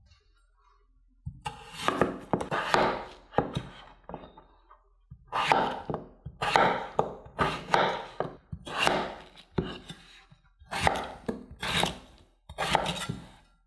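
Knife cutting raw potatoes on a cutting board: runs of quick, sharp strokes separated by short pauses.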